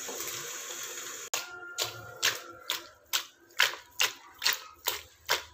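A steady hiss, then after a sudden cut a steel spoon stirring figs in jaggery syrup in a steel pot, knocking and scraping against the pot in a steady rhythm of about two strokes a second.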